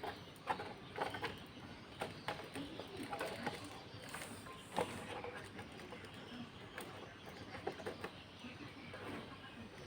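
Scattered light clicks and knocks of plastic parts as the all-in-one PC's LCD panel is eased back into place, with a dove cooing in the background.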